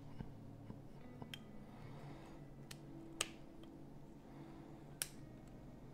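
Small clicks and snaps from the Nokia 1616-2's housing parts being handled and pressed together. The two sharpest snaps come about three and five seconds in.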